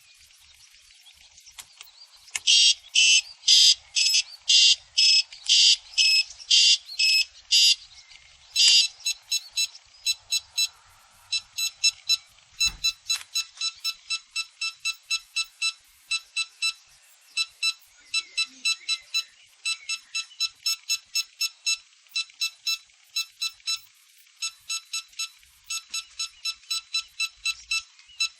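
Electronic alarm-like beeping from a prop's wireless sound box, triggered for the prop's detonation effect. About two seconds in, loud beeps start at about two a second; after several seconds they give way to quicker, quieter beeps that keep going. A dull knock comes about halfway through.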